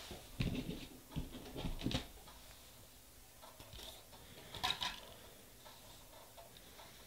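Small objects handled on a tabletop while nail-art supplies are worked with: a few soft, dull knocks in the first two seconds, then a short crisp rattle of clicks about five seconds in.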